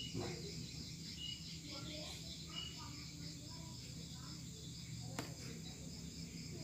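Faint background ambience of insects chirring in a steady pulsing rhythm over a low steady electrical hum, with two small clicks, one just after the start and one about five seconds in.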